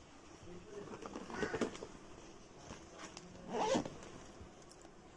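Zipper on a child's school backpack being pulled, two short zips.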